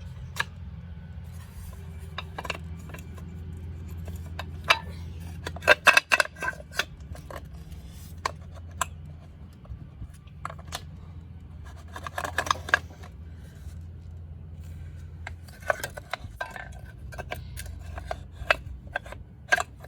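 Metal hand tools clinking, clicking and tapping against dirt bike parts while working on a stuck part, in irregular clusters of sharp clicks, over a steady low hum.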